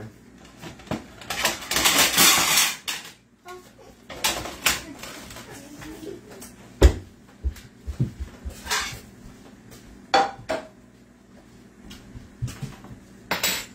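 Kitchen clatter of dishes and cutlery: scattered sharp clinks and knocks, with a louder rushing noise lasting about a second and a half near the start.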